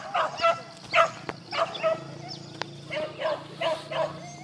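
Pack of hunting dogs barking and yelping in quick succession, about two high yelps a second, as they chase wild boar.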